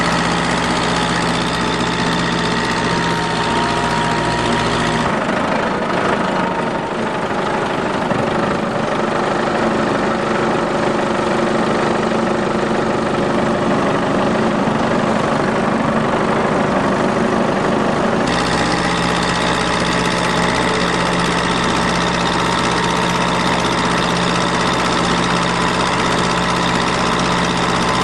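Farm tractor engine running steadily while driving along the road. Its low rumble drops away abruptly about five seconds in and comes back abruptly near the middle.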